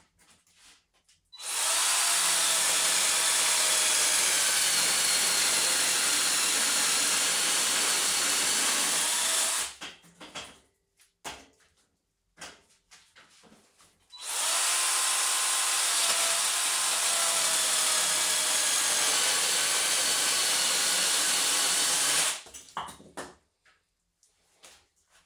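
Small Parkside chainsaw cutting through a wooden branch twice, each cut running steadily for about eight seconds. Between the cuts and after the second, light knocks of wood as the cut-off piece is handled.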